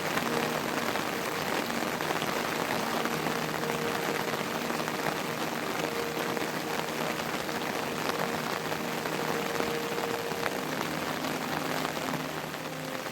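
Heavy monsoon rain falling steadily, a dense even hiss of drops on surfaces.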